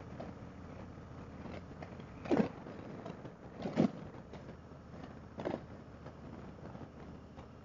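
Riding noise of a Harley-Davidson Road King Special under way: steady engine and wind noise on an open-helmet microphone, with three brief louder bursts.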